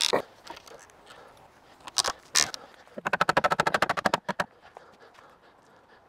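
Wooden sticks knocking and rubbing together as a stick frame is fitted: a sharp knock at the start, two more knocks about two seconds in, then a fast, even rattle of about fifteen clicks a second lasting just over a second.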